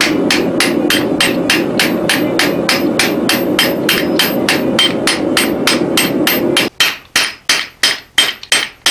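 Hand hammer striking the top die of a blacksmith's guillotine tool at about three blows a second, forging a red-hot steel bar held between the dies on the anvil, each blow a sharp metallic ring. A steady low noise runs under the blows and cuts off about two-thirds of the way through, leaving the hammer blows alone.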